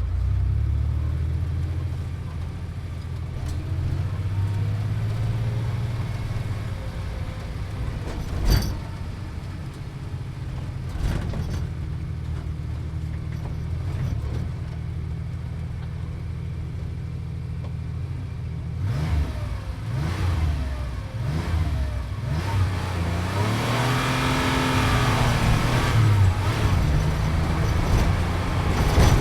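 Sports car engine heard from inside the cabin while driving, a steady low drone with a sharp knock about eight seconds in. In the last ten seconds the revs rise and fall several times and the engine grows louder.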